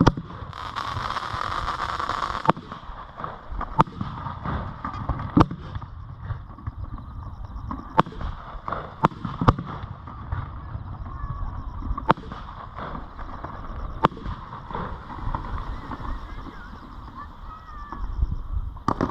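Fireworks being launched and bursting: a string of sharp bangs a second or two apart over a low rumble, with a hissing crackle about a second in.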